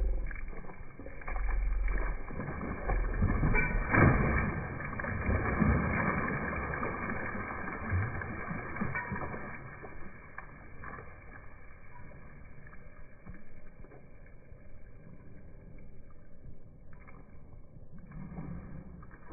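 Swimming-pool water splashing and sloshing as a large golden retriever wades along the pool's edge. It is loudest and most broken-up in the first half, then settles into quieter lapping for the rest.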